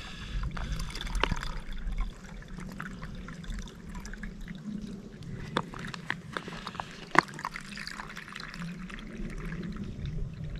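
Water trickling and dripping through a Katadyn BeFree squeeze filter as drinking water is filtered, with scattered sharp drips over a steady flow.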